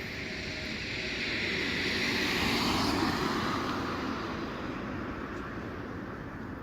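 A road vehicle passing by: its tyre and engine noise swells, peaks about halfway through and fades, dropping in pitch as it goes past.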